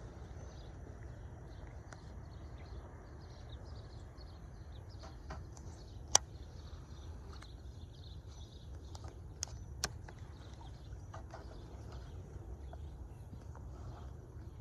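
Outdoor ambience: a steady low rumble with faint, scattered bird chirps. Two sharp clicks, one about six seconds in and one about ten seconds in.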